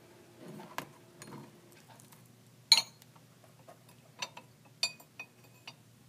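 Dichroic glass tubes clinking against each other as they are handled: a few scattered clinks, the loudest nearly three seconds in, then a run of smaller clinks with a short ring about four to six seconds in.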